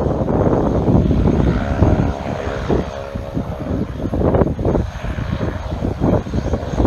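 Small turboprop airplane's engine and propeller running as it rolls along the runway, heard through gusty wind buffeting the microphone; a steady propeller hum comes through most clearly about two seconds in.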